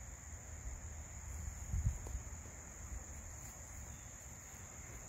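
A steady, high-pitched insect chorus over a low, uneven rumble that peaks briefly about two seconds in.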